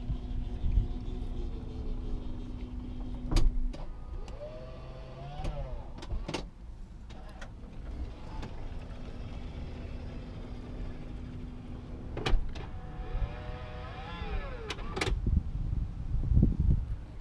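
An electric accessory motor on a 2004 Chrysler Town and Country minivan runs through the same cycle twice. Each time there is a steady hum for a few seconds, a click, then a whine that rises and falls for about two seconds and stops with another click.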